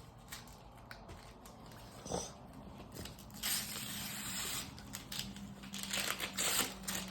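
Wrapping paper being torn and crinkled by hand as a present is unwrapped, in several irregular rips, the longest about three and a half seconds in.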